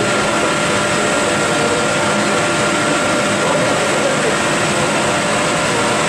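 7 MW biomass sawdust burner running while firing an industrial boiler: a loud, steady rush of fan and combustion noise with a few constant high tones running through it.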